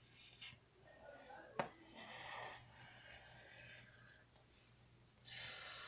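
Faint, breathy whispering close to the microphone, with a single light click about one and a half seconds in.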